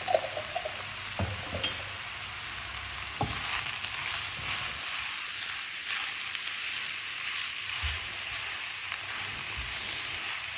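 Chicken, mushrooms and onions sizzling steadily as they fry in butter and oil in a pan, with a few sharp knocks of a utensil against the pan in the first few seconds as it is stirred.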